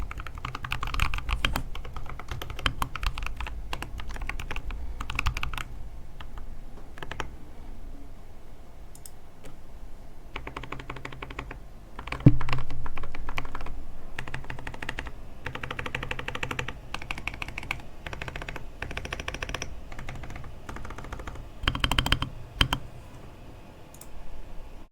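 Typing on a KBDfans Odin custom mechanical keyboard with lubed Boba U4T tactile switches, brass plate and MT3 keycaps: bursts of rapid keystrokes with short pauses between them, and one louder thump about halfway through.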